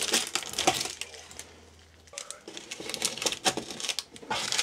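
Hands handling plastic parts and packing: a quick run of clicks, taps and crinkles, a short lull about halfway, then more clicking and rustling.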